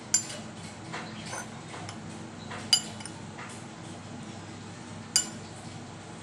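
A metal spoon stirring syrup-soaked papaya cubes in a bowl, with a few sharp clinks of spoon on bowl. The two loudest, in the middle and near the end, ring briefly. A steady low hum runs underneath.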